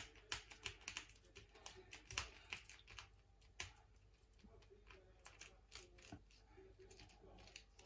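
Faint metallic clicks and ticks of a tubular lock pick being pressed and twisted in an old brass tubular padlock as its needles set the pins. The clicks come thick in the first few seconds, then thin out.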